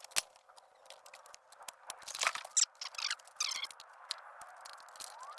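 Handling noise: scattered sharp clicks and short scraping, rustling sounds, the loudest cluster about two and a half seconds in.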